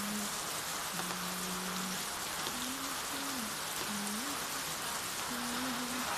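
Steady rain falling during a flood, an even hiss of rain throughout. Underneath it a faint low tone holds and shifts in pitch a few times.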